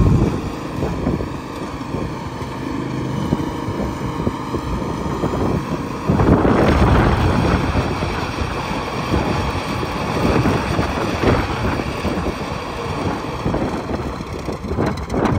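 Kubota T2380 lawn tractor's engine running steadily as it is driven slowly, with wind buffeting the microphone from about six seconds in.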